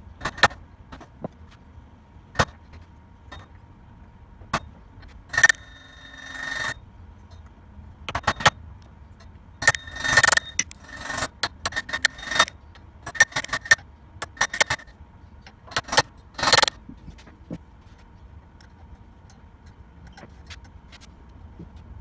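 Hammer blows driving the steel drum sprocket of a Scott Bonnar Model 45 cylinder mower onto its shaft, partly through a wooden block, with the metal ringing. The sprocket is a tight fit that would not slide on over its old Woodruff key. Single blows come first, then quicker runs of blows in the middle, and they stop a few seconds before the end.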